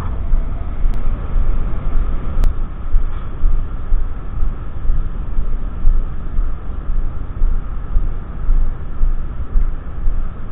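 Honda Monkey small motorcycle being ridden, its engine buried under heavy wind rumble buffeting the action camera's microphone, a steady low roar that surges and dips constantly.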